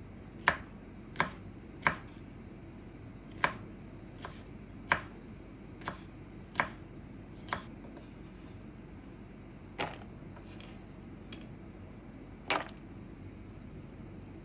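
About a dozen sharp, hard taps or knocks at uneven intervals, most of them in the first eight seconds, then two more later on, over a steady low room hiss.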